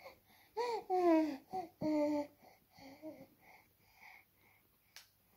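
A 7.5-month-old baby babbling: a few loud, drawn-out vocal sounds with the pitch sliding down, then a string of softer, shorter ones. A single sharp click near the end.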